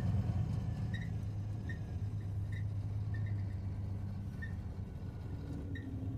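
Scania truck's diesel engine running at low speed, heard from inside the cab as a steady low drone that eases off slightly. Faint light clicks or rattles come now and then.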